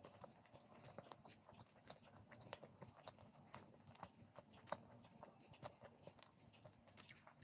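Faint chewing while eating: many small, irregular mouth clicks and soft crunches.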